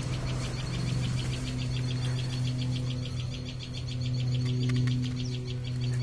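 Cricket chirping in a fast, even pulse, about eight high chirps a second, over a steady low hum.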